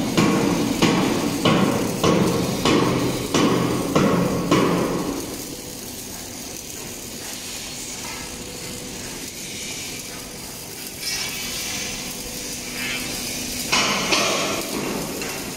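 Hammer blows on steel during tank fabrication, about eight ringing strikes at a steady pace, a little under two a second. The hammering stops about five seconds in, leaving a quieter workshop background, and louder noise returns near the end.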